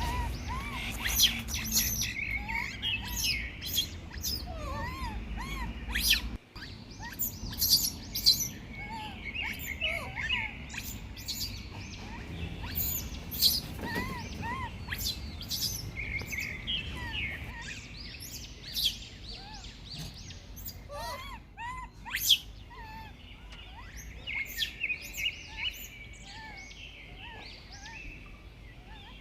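Many short, high chirping calls in quick succession throughout, with scattered sharp clicks.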